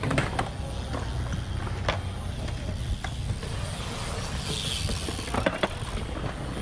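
BMX bikes rolling on a concrete skatepark bowl: a steady low rumble of tyres on concrete, with a few sharp knocks and clicks from the bikes hitting the surface, two close together near the end.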